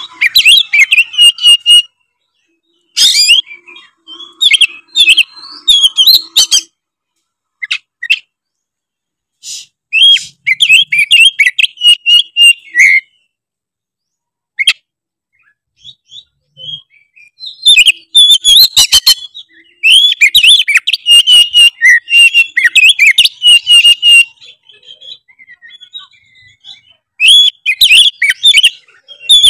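Oriental magpie-robin (kacer) singing loudly in full voice: bouts of rapid, varied whistles and chattering notes, broken by pauses of a few seconds.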